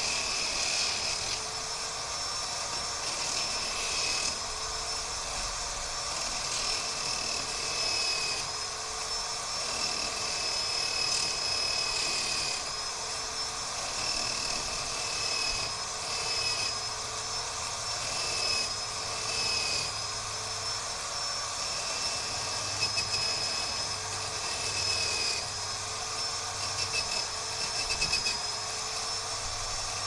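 Corded electric drill, clamped to a bench as a makeshift grinder, running continuously while the sharp end of a steel garage door spring hook is pressed against it to deburr it. A steady high motor whine with a grinding hiss, its pitch dipping slightly now and then as the steel is pushed against it.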